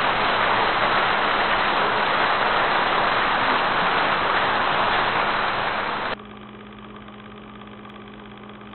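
A loud, steady hiss of noise that cuts off abruptly about six seconds in, leaving only a faint hiss and a low steady hum.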